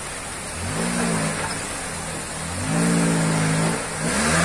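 Suzuki Jimny Katana off-roader's engine revving in three surges under load as it crawls up a rocky stream bed: a short one about a second in, a longer one around three seconds, and another starting near the end. Beneath it runs the steady rush of the stream.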